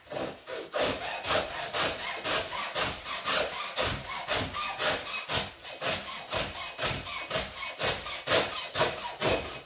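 Hacksaw cutting through a thick three-strand climbing rope in steady back-and-forth strokes, about three a second.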